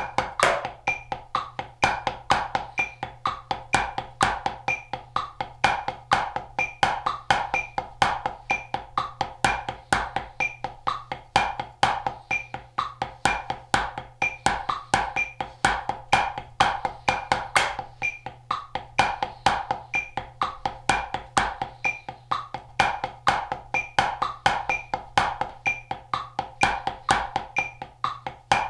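Wooden drumsticks striking a rubber practice pad in a fast, steady sticking exercise, accented strokes standing out from lighter notes. A soft metronome clicks a little under twice a second underneath.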